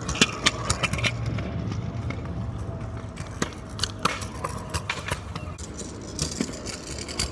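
Street ambience with a low rumble of road traffic and scattered sharp knocks, clicks and scrapes close to the microphone. The knocks are loudest in the first second.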